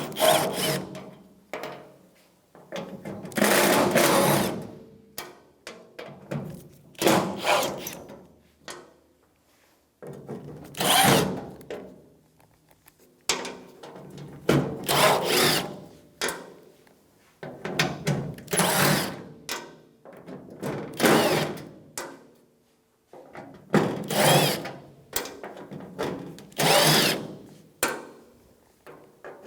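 Power driver with a T30 Torx bit running in repeated short bursts, one after another, as it backs the Torx screws out of a pickup tailgate's inner panel.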